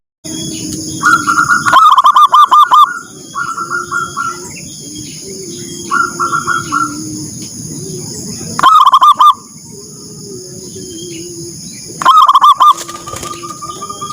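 Zebra doves (perkutut) cooing: fast rattling phrases of short coos. The loudest bouts come at about a second in, again past the middle and near the end, with softer phrases between them. A lower, softer cooing runs underneath, over a steady faint high-pitched hum.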